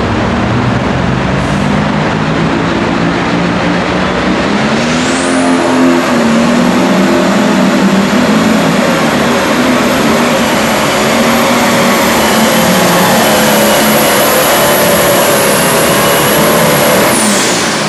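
John Deere Pro Stock pulling tractor's turbocharged diesel engine under full load pulling the sled, with the revs climbing about five seconds in. A high turbo whistle rises with them, holds steady through the pull and drops away near the end as the engine comes off power.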